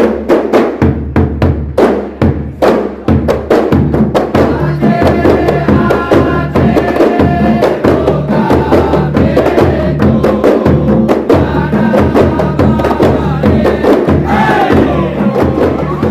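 Kompang frame drums beaten by a large troupe in fast interlocking rhythm, with a big bass drum struck with a mallet underneath and male voices chanting along.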